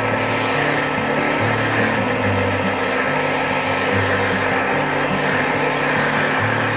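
Handheld electric heat gun blowing steadily, drying a freshly screen-printed layer of glue paste on a T-shirt.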